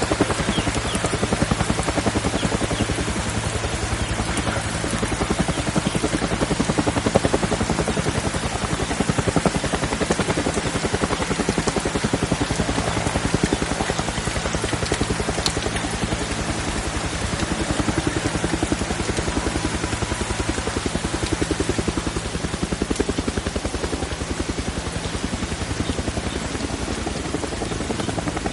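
Steady heavy rain falling, a dense unbroken rushing noise with a low hum underneath.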